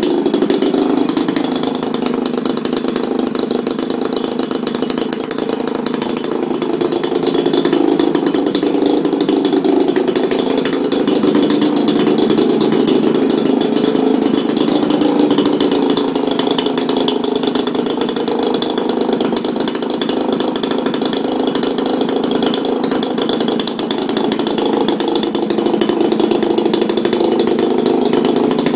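AGM 30cc two-stroke petrol model-aircraft engine turning the propeller of an RC P-47, running steadily on the ground with small rises and falls in speed. It is the engine's first run, and it runs very smooth.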